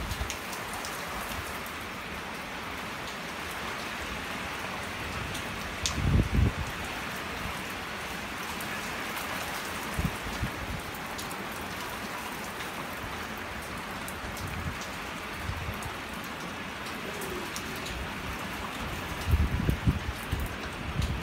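Steady rain from a thunderstorm falling onto surfaces, as an even hiss. A few short low rumbles rise out of it about six seconds in and again near the end, the loudest moments.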